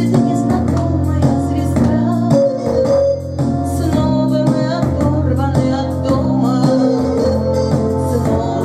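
Music: a song with a voice singing over keyboard or organ-like accompaniment and a steady bass line.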